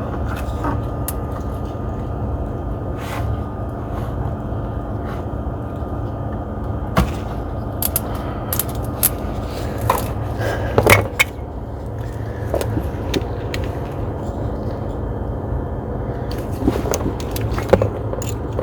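Scattered sharp metallic clicks and clinks of hand tools being handled, loudest in a cluster about ten to eleven seconds in, over a steady low hum.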